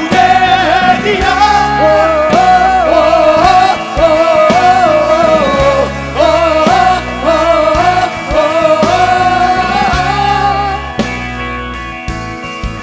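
Live fusion band playing: the last sung word of a line, then a bending, ornamented melody line over steady bass notes. The music thins out near the end.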